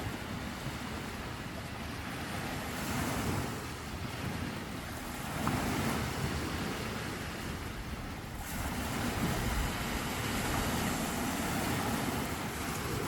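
Sea waves breaking and washing onto the shore, swelling louder every few seconds.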